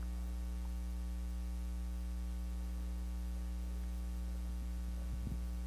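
Steady electrical mains hum: a low, constant buzz with a ladder of overtones. A few faint ticks come near the end.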